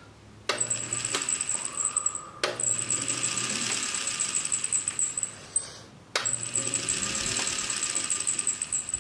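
Series-wound DC electric motor switched on three times with no load, each start marked by a sharp click, spinning with a hiss and a steady high whine; it is being run to check its direction of rotation.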